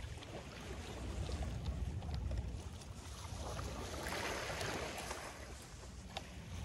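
Small lake waves lapping on a stony shore, one larger wash swelling up about four seconds in, over a steady low wind rumble on the microphone.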